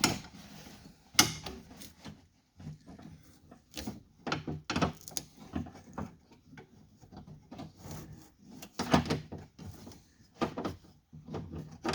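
Ratchet wrench clicking in short spells, with tools knocking and scraping against the door's inner metal panel as the door handle's mounting nuts are snugged up. The clicks and knocks come irregularly, with short quiet gaps.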